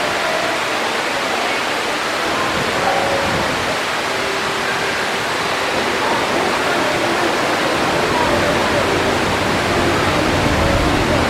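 Steady rushing of water pouring down the Mirage volcano's waterfall, with faint chatter from a crowd mixed in. A low rumble builds in the last few seconds.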